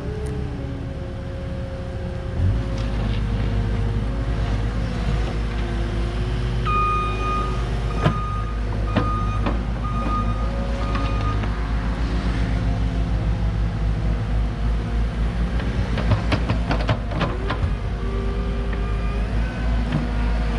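Cat mini excavator's diesel engine running steadily under hydraulic load as the bucket digs into the soil, with sharp metallic clanks from the bucket and linkage, most of them late on. A beeping alarm sounds several times, about a beep a second, in the middle.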